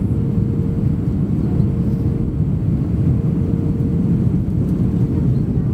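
Airbus A320 heard from inside the passenger cabin: a steady, loud rumble of engines and airflow with a faint constant hum above it.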